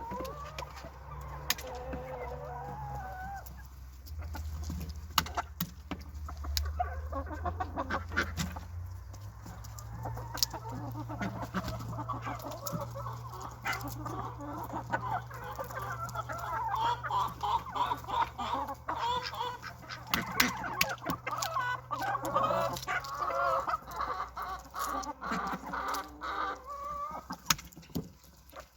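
Chickens clucking while they feed, many short calls overlapping, busier in the second half, with scattered pecking clicks and a steady low hum beneath.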